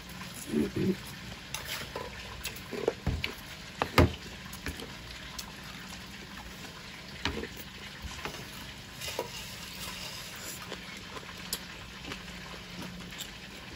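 Someone eating stir-fried rice noodles: slurping strands and chopsticks clicking against a plate and bowl, in short scattered sounds over a steady low hum.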